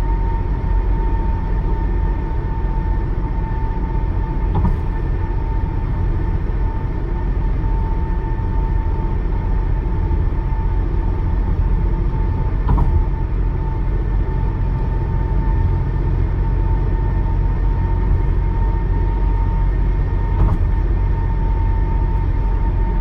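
Tires running over a grooved concrete bridge deck: a steady rumble with a high, even whine held throughout. Three brief knocks come about eight seconds apart.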